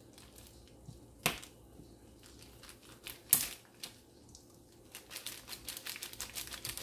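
Sharp clicks and knocks of a cheese slicer cutting slices from a block of Asiago on a board: two loud clicks, then a quick run of small ticks near the end.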